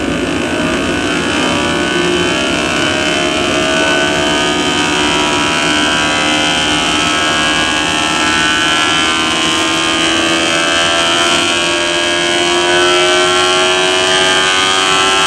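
QEG generator's electric drive motor and spinning rotor running with a steady whine of many tones, climbing slowly in pitch as the machine speeds up.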